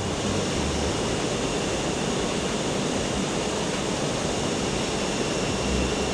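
Industrial machine running in the ski factory: a steady, even roar with a faint high whine over it.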